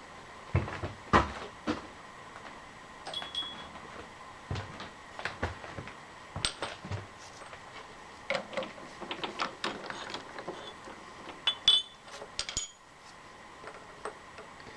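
Scattered light metal clinks and knocks of tools and parts being handled, some ringing briefly, with a brief flurry of sharper clinks about twelve seconds in. No machine is running.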